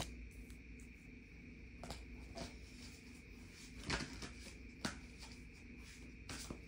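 Quiet room tone with a steady low hum, broken by a few short, soft clicks and taps of tarot cards being handled on a hardwood floor, the first as a card is set down.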